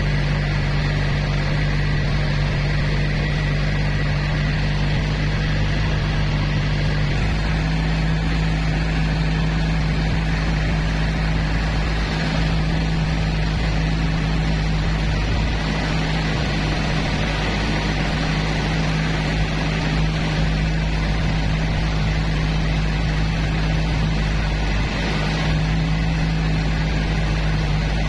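Tour boat's engine running steadily while cruising along the river, a loud low drone whose note steps up slightly about seven seconds in, over a rushing hiss.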